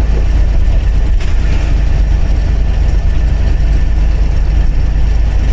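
Leyland diesel bus engine and drivetrain running at speed, heard from inside the cabin beside the gearbox: a loud, steady deep rumble with road noise and a brief knock about a second in.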